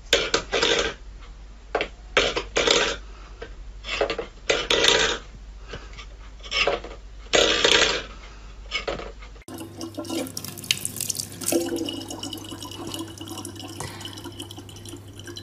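A cat pawing a stainless steel bowl on a wooden floor, the metal scraping and clattering in short, irregular bursts. About nine seconds in, this gives way to a tap running steadily in a thin stream into a plastic bottle.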